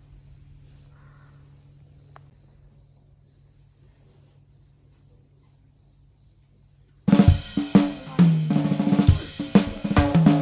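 Crickets chirping in an even rhythm, about two or three short high chirps a second. About seven seconds in, louder band music with a drum kit cuts in and the chirping stops.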